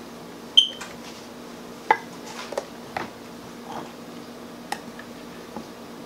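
Scattered light knocks and clinks of a measuring cup and a hand mixer's metal beaters against a plastic mixing bowl as flour is tipped in. A sharp ringing clink about half a second in is the loudest; a faint steady hum sits underneath.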